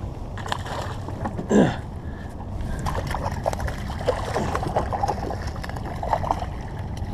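Steady wind and water noise around a small boat, with a short falling call about one and a half seconds in and scattered light ticks and knocks.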